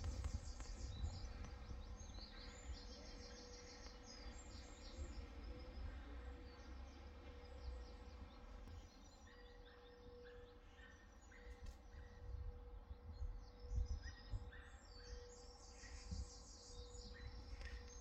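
Faint calls of crows from a treetop nesting colony, with other birds chirping, over a low wind rumble on the microphone.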